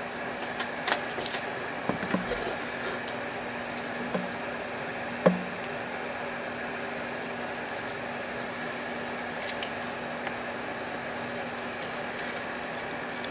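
Small metallic clicks and rattles as a microphone plug and its cord are handled and connected to a radio. The clicks cluster in the first couple of seconds, then come singly every few seconds, the sharpest about five seconds in, over a steady low hum.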